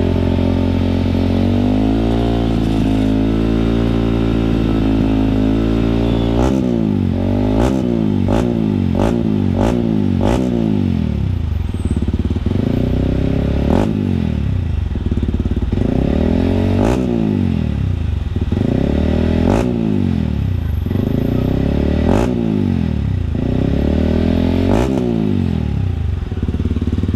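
Yamaha WR155R single-cylinder engine breathing through a newly fitted Radamel F4-1 aftermarket exhaust, idling at first, then revved in quick throttle blips about once a second, then in about five longer revs up and back down: a sound check of the new exhaust.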